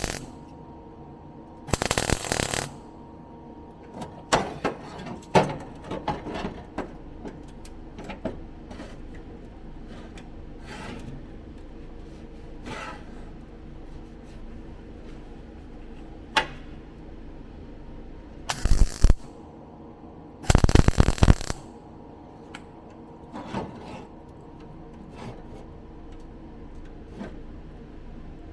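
Metalwork on a car's floor panel: tools and clamps clattering against sheet steel, with a few short, loud noisy bursts about 2 s in and twice near 19 and 21 s in.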